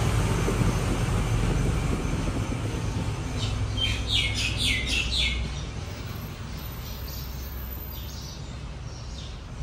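A bird chirping: a quick run of about six short, falling chirps about four to five seconds in, over a steady low background rumble.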